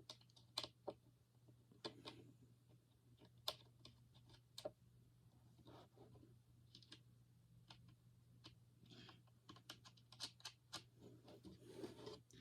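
Faint, irregular clicks and ticks of small metal hardware as the truck mounting nuts and bolts are handled and threaded on by hand.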